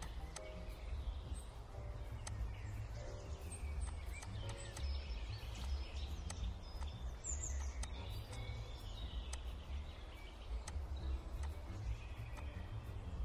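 A steady low background rumble, with faint high chirps and a few light clicks scattered through it.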